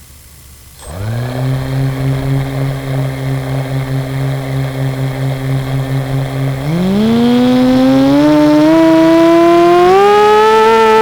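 Four small brushless motors of a 250-size FPV quadcopter starting up about a second in and running with a steady low hum that pulses slightly. From about seven seconds in the hum rises steadily in pitch as the throttle is raised.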